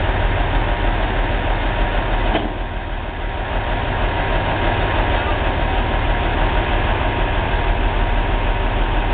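Heavy engine idling steadily, with a brief dip in loudness about two and a half seconds in.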